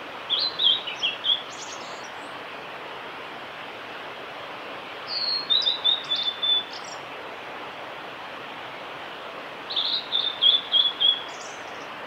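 Male blue-and-white flycatcher singing: three short song phrases, each a quick run of clear whistled notes that step down in pitch and end in a few short notes, coming about every four to five seconds over a steady background hiss.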